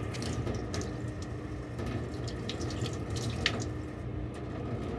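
Tap water running from a faucet into a stainless steel sink and splashing over a soldered glass piece held under the stream to rinse off the flux, with a few light clicks.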